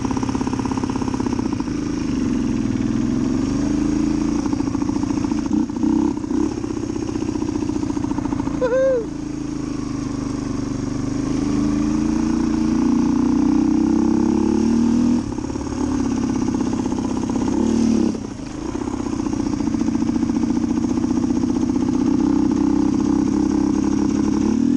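1990 Suzuki DR250's single-cylinder four-stroke engine running under way, its pitch rising and falling with the throttle and dropping away briefly about nine seconds in and again near eighteen. It runs not very smooth down low in the revs. A rider's whoop about nine seconds in.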